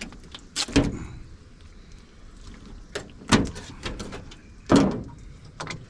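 Fillet knife cutting through a flounder on a cutting board: a few separate sharp cutting strokes and knocks about a second or more apart, as the blade hits bone.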